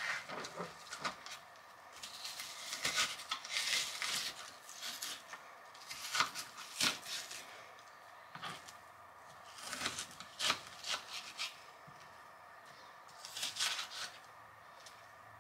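Kitchen knife slicing a white onion on a plastic cutting board, in several bouts of quick cutting strokes with short pauses between.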